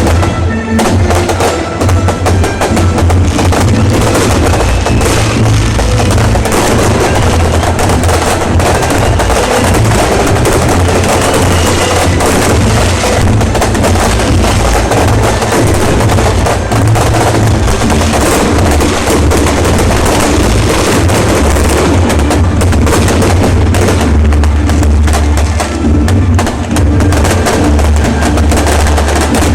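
Loud, continuous fireworks barrage: dense crackling and bangs over a deep rumble.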